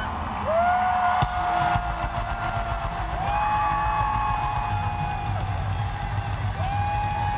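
Live pop-rock band music: a run of long, held high notes, each sliding up into pitch, over a steady drum and bass backing. A single sharp click comes about a second in.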